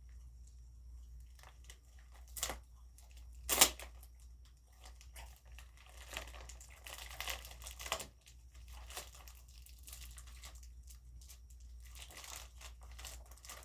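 Plastic shipping mailer crinkling and tearing as it is pulled and worked open by hand, in scattered rustles and rips; the loudest is a sharp rip about three and a half seconds in.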